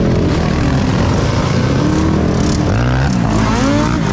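Several vehicle engines running at once, with one revving up, its pitch rising steeply about three seconds in.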